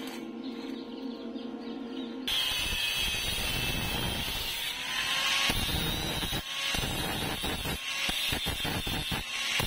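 Angle grinder with a cut-off disc cutting stainless steel tube, the metal shrieking under the disc. It starts abruptly about two seconds in after a steady hum, and in the second half the cutting comes in many short, quick passes as the disc works the tube end.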